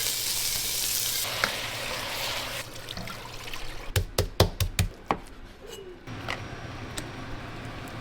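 Kitchen cooking sounds: a loud hiss for the first two or three seconds, then a quick run of sharp clacks from kitchen utensils about four to five seconds in.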